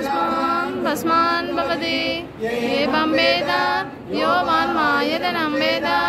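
Female singing of a Tamil devotional archanai song to the goddess, unaccompanied, in sung phrases broken by short pauses about two and four seconds in.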